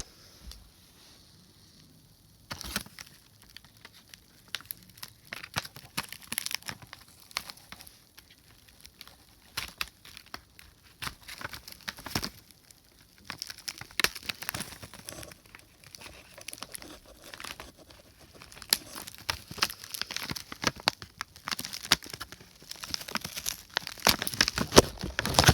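A small box being opened by hand: packaging crinkling and tearing, with many irregular clicks and rustles after a quiet first two seconds.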